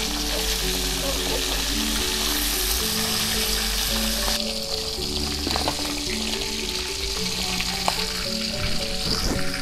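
Mullet frying in hot oil in a wok, a steady sizzle, with a few sharp clinks of a metal spatula stirring and turning the fish.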